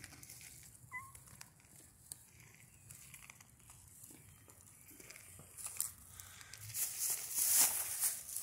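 Rustling and crunching through grass and dry leaf litter, growing loud in the last few seconds as someone moves off on foot. A short high chirp comes about a second in.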